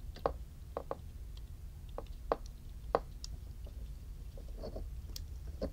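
Light metal clicks and taps from the reassembled mechanism of a vintage Ronson Triumph automatic petrol lighter being handled and worked by hand, a handful of short clicks at irregular intervals.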